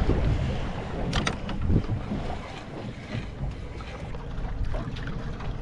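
Wind buffeting the microphone over water moving against a small boat's hull, with a couple of sharp knocks about a second in.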